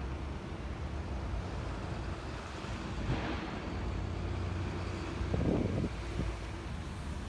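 Blizzard wind buffeting a phone microphone: a steady low rumble, with a louder gust about three seconds in and a short louder sound a little past the middle.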